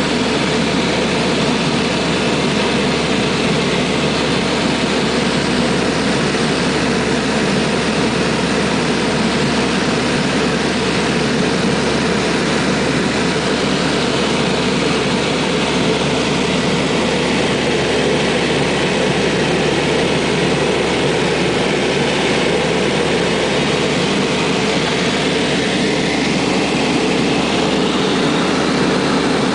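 Steady drone of a 1979 Gulfstream American GA-7 Cougar's twin four-cylinder Lycoming piston engines and propellers in flight, heard from inside the cabin.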